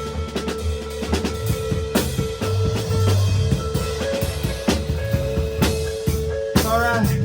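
Live rock band playing an instrumental passage: dense drum-kit hits over bass, with a steady held note running through. A short wavering pitched sound comes in near the end.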